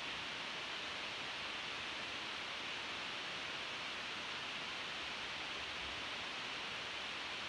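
Steady, even hiss of background room noise, with no distinct sounds standing out.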